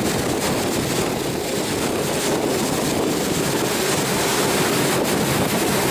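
Motorboat engine running steadily, with water rushing past and wind buffeting the microphone.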